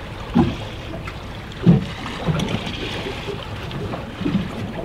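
Waves slapping against a small boat's hull: several dull thuds a second or more apart, the loudest near the middle, over a steady rush of wind and sea.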